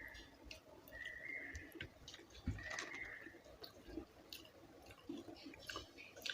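Quiet close-up eating sounds: soft chewing and small wet mouth clicks of someone eating rice with mashed bhortas. A short high whistling note repeats about every second and a half through the first half.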